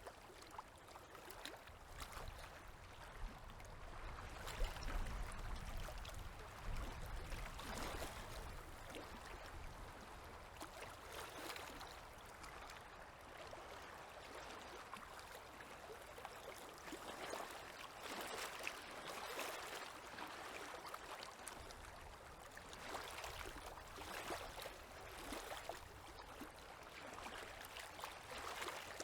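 Small river waves lapping at the shore, a soft wash that swells and falls every few seconds. A low rumble sits under it briefly, about four to eight seconds in.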